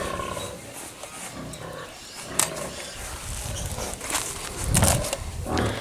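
Tyre levers clicking and knocking against a motorcycle wheel rim as the tyre bead is forced back on over the patched inner tube. A low, rough noise between about three and six seconds in, loudest near five seconds.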